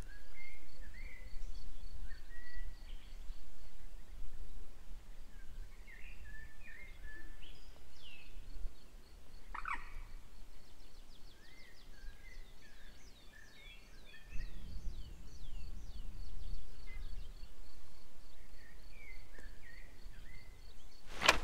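Birds chirping and calling, many short chirps and quick falling whistles, with a faint high note repeating underneath. A low wind rumble on the microphone swells in the second half, and a single sharp click comes near the end.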